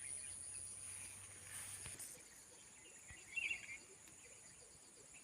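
Faint, steady high-pitched drone of insects such as crickets around a paddy field, with a brief flurry of chirps about three and a half seconds in.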